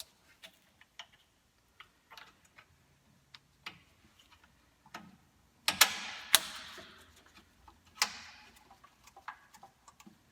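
Hand tools and small metal hardware being handled, with scattered light clicks and taps. A little past the middle come three louder metallic clanks, each ringing out briefly.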